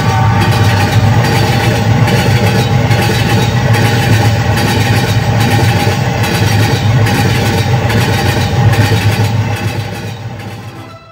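Passenger train running, heard from the open doorway of a coach: a loud, steady rumble of the coaches on the track that fades out near the end.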